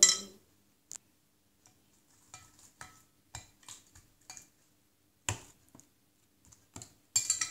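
Light, scattered clicks and taps of a utensil against a glass bowl as slime is stirred in it, with one sharper knock about five seconds in.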